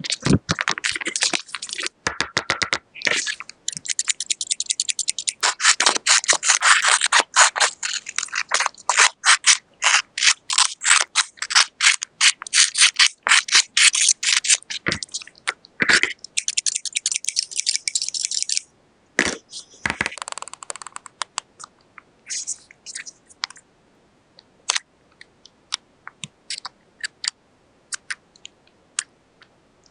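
Paper being handled for a paper squishy, with rapid, dense crinkling and scraping strokes. After about eighteen seconds these thin out into scattered light clicks and taps.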